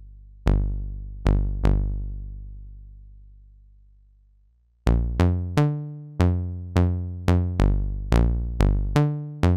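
Modular synthesizer notes played through the Make Noise QMMG (Quad Multimode Gate) set as a vactrol low-pass gate. Each note is a plucked, percussive ping whose brightness fades along with its volume. Three notes ring out long in the first two seconds, then from about five seconds in comes a faster run of about eleven notes at changing pitches, roughly two a second.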